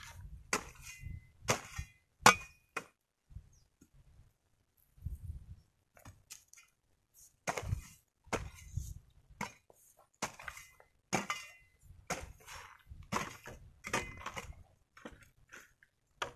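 Steel hoe blade chopping and scraping dry, stony soil to cover newly planted krachiao rhizomes. The blows are irregular, about one a second, with a pause of about two seconds after the first few. Several blows give a short metallic ring where the blade strikes stones.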